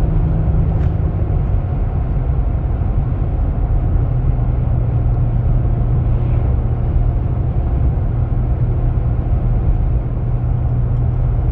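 Chevy Colorado pickup heard from inside the cab at highway speed while towing a car: a steady low engine drone over road and wind noise. The drone settles to a slightly lower pitch about two seconds in.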